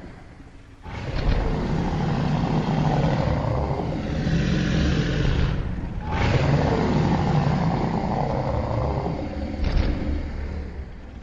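Rumbling, roaring monster sound effect made for the creature the Crab Meat Mushrooms Beetle. It is heavy in the low end, starts a little under a second in, and breaks off briefly about six seconds in.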